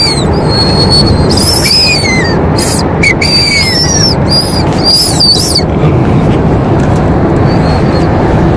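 A ring-shaped whistle candy blown through the lips: several short, high, wavering whistles in the first five or so seconds. Under them runs the steady rumble of a car's road noise heard from inside the cabin.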